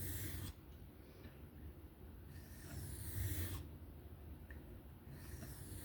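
Knife blade scraping across an Atoma diamond sharpening plate in slow freehand strokes: three hissing passes, about two and a half seconds apart.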